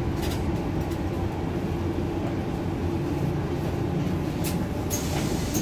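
Steady low rumble inside a city bus cabin, from its engine and the road, with a few light clicks and rattles.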